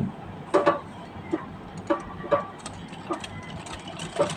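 Straight-stitch treadle sewing machine stitching slowly through hooped fabric: a separate knock about every half to three-quarters of a second.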